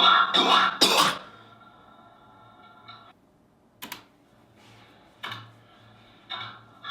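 A man coughing: a quick run of loud, harshly distorted coughs in the first second. Background music plays under them and cuts off about three seconds in, followed by a few faint short sounds.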